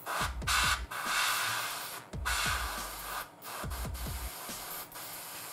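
Airbrush with a 0.2 mm nozzle at low pressure, about 0.8 bar, spraying heavily thinned paint. It makes a hiss that starts and stops in several short passes.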